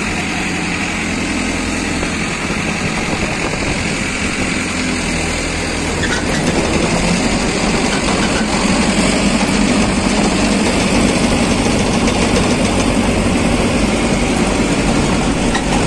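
Farmtrac 6055 tractor engine running steadily under load, driving a PTO soil loader whose cutter and conveyor belt carry soil up and throw it off the top. The sound grows slightly louder and fuller about six seconds in.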